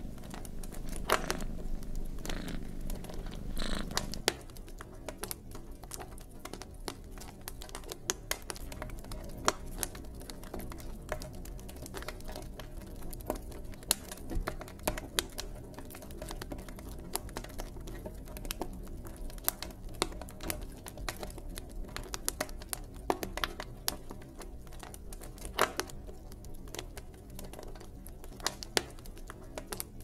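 Wood fire crackling in a fireplace: irregular sharp pops and snaps over a low steady rumble of the flames. The low rumble is louder in the first four seconds, then settles.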